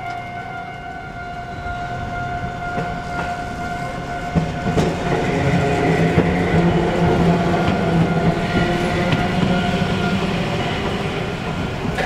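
Japanese level-crossing alarm bell ringing with its repeated electronic tone. From about four seconds in, a Randen (Keifuku Electric Railroad) tram passes over the crossing; its motor hum and wheel noise, with clacking over the rail joints, rise to become the loudest sound and then ease off.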